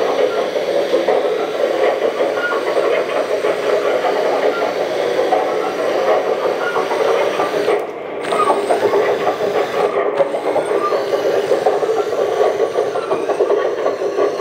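Kabolite K970 RC excavator's built-in sound system playing a simulated excavator engine with track clatter while the model drives on its metal tracks: a steady, dense rattling run.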